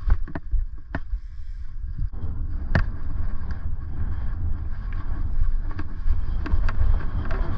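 Wind buffeting a helmet-mounted camera's microphone as a BMX bike rides along a dirt track, with a steady low rumble and scattered clicks and knocks from the bike rattling over the bumps, the sharpest about three seconds in.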